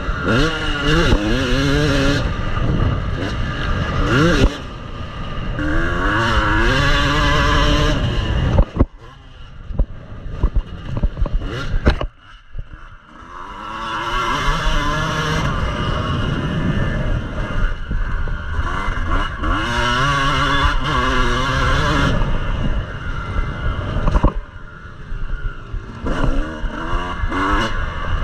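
Yamaha motocross bike's engine heard from on board, revving up and falling off again and again as the rider works the throttle and gears. About a third of the way in the throttle is shut for a few seconds, with a few sharp knocks, before it pulls hard again.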